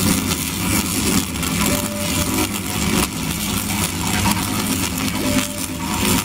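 Tesla coil discharges of artificial lightning: a continuous loud crackling over a steady low buzz.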